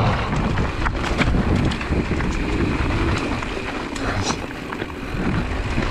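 Mountain bike rolling fast over loose rock: tyres crunching on gravel and stones, the bike rattling with frequent sharp clicks and knocks, and wind rushing over the microphone.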